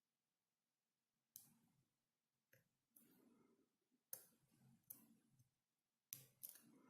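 Faint, sharp clicks of a dimple pick pushing on pin 3 inside an ISEO R6 dimple euro cylinder, about seven irregular clicks; the picker judges that this pin got overset.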